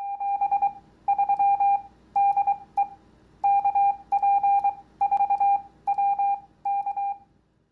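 Morse code sent as a single steady mid-pitched beep, keyed in short and long elements, spelling out the amateur radio call sign KP4WK.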